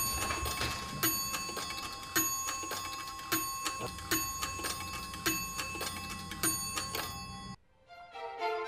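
Rombach & Haas shield clock's 8-day mechanical movement ticking steadily, cutting off suddenly near the end.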